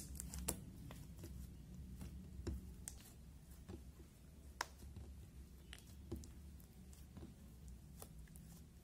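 Clear slime being kneaded, folded and stretched by hand, giving faint, irregular sticky clicks and pops, the sharpest about half a second in and again about halfway through.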